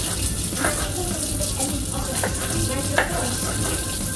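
Kitchen tap running steadily into a stainless steel sink, with a few knife chops on a plastic cutting board; the sharpest chop comes about three seconds in.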